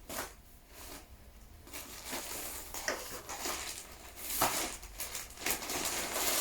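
Irregular rustling and crinkling of clothes and their packaging being handled and unfolded, with a few sharp crackles, the loudest about four and a half seconds in.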